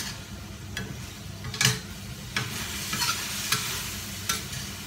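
Spatula scraping and knocking against a steel wok in strokes about once a second while stir-frying, with the food sizzling in the hot pan and the sizzle swelling about halfway through.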